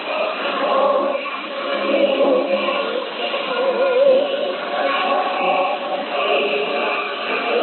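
Choral singing with musical accompaniment, received over shortwave radio, with a thin, narrow sound. A held note wavers with vibrato about four seconds in.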